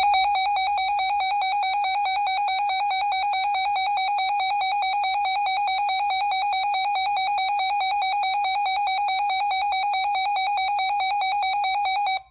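Emergency Alert System two-tone attention signal, a harsh steady dual-tone alarm with a fast beating warble, held for about twelve seconds and then cut off abruptly. It announces that an emergency alert message is about to be read.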